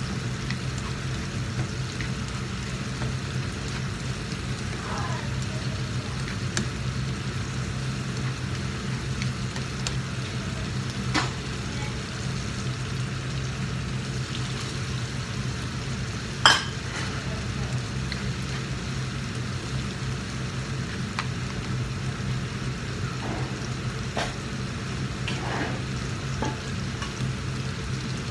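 Chopped vegetables sizzling in a frying pan over a gas flame while a spatula stirs them, with a few light clicks of utensil on the pan and one sharp clack a little past halfway. A steady low hum runs underneath.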